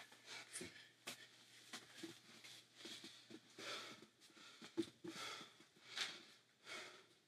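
Faint, quick, heavy breathing by a man, about one breath a second, with a few light knocks of movement.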